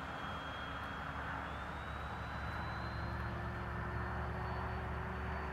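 Electric ducted fan of a 90 mm RC F-86 Sabre model jet flying overhead: a steady whooshing hiss with thin whining tones that glide slowly upward about halfway through.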